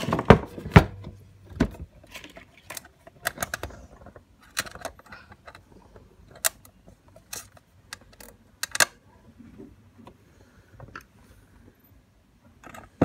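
Irregular sharp metallic clicks and taps as the sheet-metal base plate of a small electric glass-ceramic hob, a screw and a Phillips screwdriver are handled and fitted together. A cluster of louder knocks comes in the first two seconds and another about nine seconds in.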